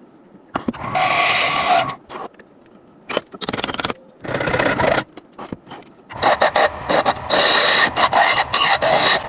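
A rusty steel knife blade being scraped by hand in short bursts, the metal ringing faintly under the strokes; near the end comes a longer run of quick back-and-forth strokes.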